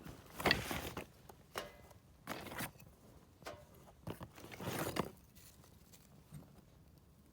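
Ferrocerium fire-starter rod struck with its scraper to throw sparks onto tinder: about five short rasping scrapes over five seconds, the first and last the longest.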